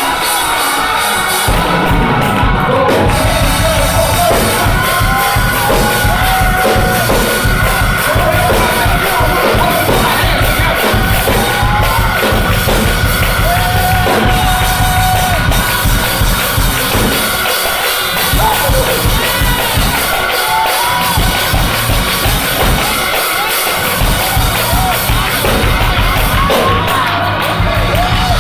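Live gospel choir singing with a band and drum kit.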